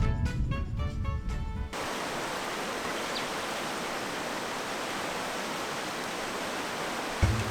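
Background music with a beat stops abruptly a little under two seconds in, giving way to the steady, even rush of flowing stream water; music starts again near the end.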